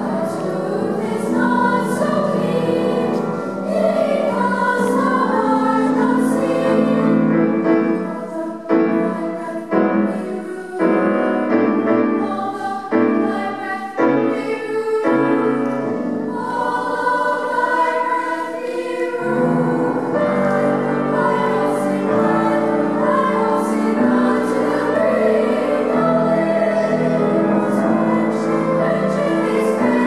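Children's choir singing with piano accompaniment.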